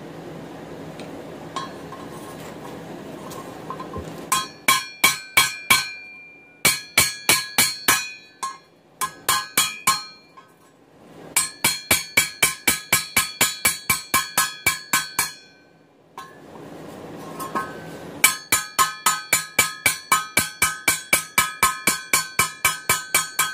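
Hammer peening steel rivets (16-penny nails) to fasten a hand-forged mild-steel handle onto a steel frying pan on an anvil: runs of quick, ringing strikes, about three to four a second, with short pauses between runs. A steady rushing noise fills the opening seconds and a pause about two-thirds through.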